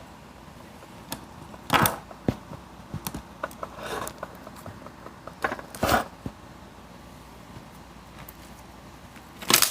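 Scattered handling noises: a few short rustling or squishing bursts, about two, four and six seconds in and again near the end, with small clicks and knocks between them.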